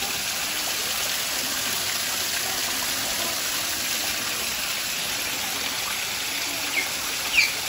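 Steady rush of running water in an otter pool, with an Asian small-clawed otter giving two short, high, rising chirps near the end.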